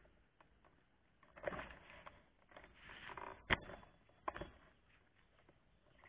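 Handling noise near the camera: two spells of rustling, then two sharp clicks less than a second apart.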